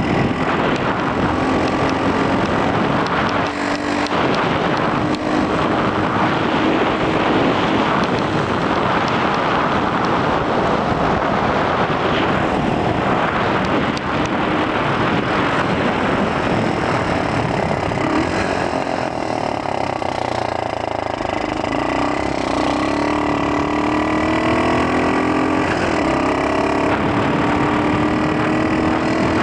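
X18 super pocket bike engine running while riding, mixed with heavy wind noise on the helmet-mounted microphone. About two-thirds in, the engine note drops back, then climbs again in a few rising sweeps as the bike accelerates.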